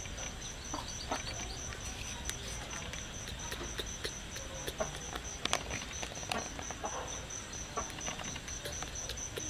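An insect chirping steadily in the background, a high even pulse about four to five times a second, with scattered soft clicks from a baby monkey sucking on a person's fingers.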